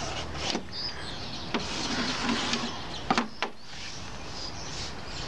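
Steady background hiss with a few short, sharp taps; the loudest two come close together about three seconds in.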